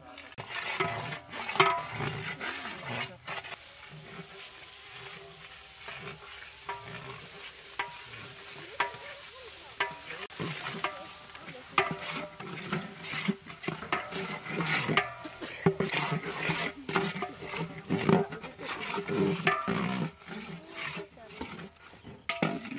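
A long-handled ladle stirring, scraping and knocking against a large aluminium cooking pot as spices fry with a sizzle. Raw beef pieces are tipped in from a plate about halfway through and stirred.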